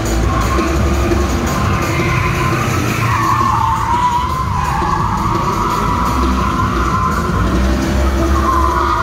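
A Holden drift car sliding sideways: its tyres squeal in a long, wavering screech that rises and falls as it drifts, with the engine running hard underneath. Show music plays at the same time.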